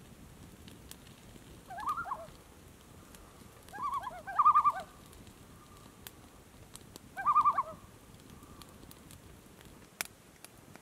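Common loons giving their quavering tremolo calls, three bouts of rapid wavering notes, the middle one loudest.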